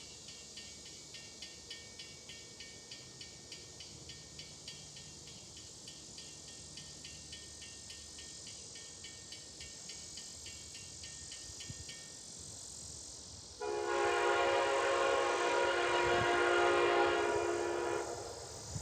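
A bell rings steadily at about three strokes a second and stops about twelve seconds in. Then an Amtrak passenger locomotive's horn sounds one long, loud blast of about four seconds.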